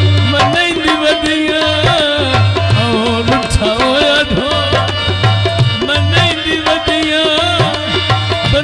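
Live South Asian folk music through a PA: a harmonium melody over a steady hand-drum rhythm, in an instrumental passage between sung lines.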